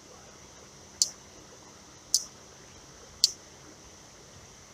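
Three short, sharp, high clicks about a second apart, over a faint steady hiss.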